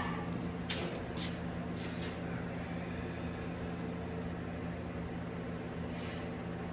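Steady electric machine hum with a fan-like whir, broken by a few light knocks.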